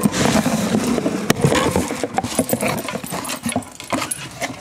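Cardboard parcel box being opened and handled by hand: rustling cardboard with a quick run of clicks and knocks that thins out toward the end.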